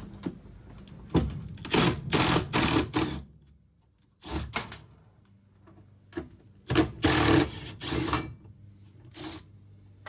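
Makita 18-volt cordless impact driver with a 10 mm socket, hammering in several short bursts with pauses between as it runs out the bolts of a washing machine's tub support bracket.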